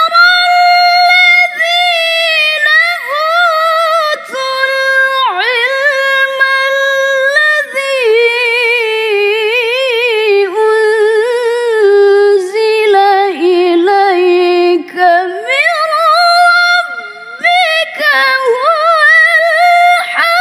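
A woman's voice reciting the Quran in melodic tilawah style: long, richly ornamented phrases with a few short breath breaks. The pitch sinks lower in the middle, climbs high again, and the recitation stops right at the end.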